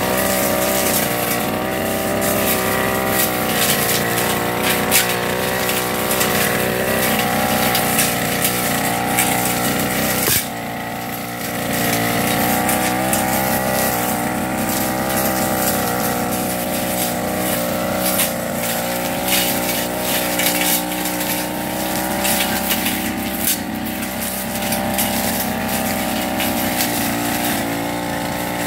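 Backpack two-stroke brush cutter running at full throttle as it cuts grass and weeds. Its pitch wavers with the load, and the engine eases off briefly about ten seconds in before picking up again.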